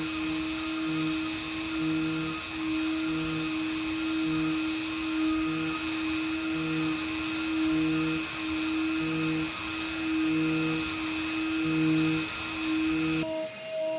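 Hot-air plastic welding gun running steadily: a strong air hiss over a steady motor whine. It cuts off suddenly near the end.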